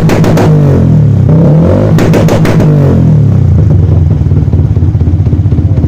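Small single-cylinder motorcycle with an aftermarket exhaust, blipped up and down twice with sharp crackles, then settling into a steady, pulsing idle.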